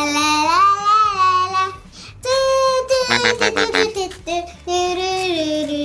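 A child singing long, held notes that slide up and down, with a short break about two seconds in.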